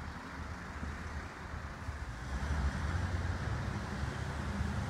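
Low steady rumble with wind noise on the microphone, growing somewhat louder about two seconds in.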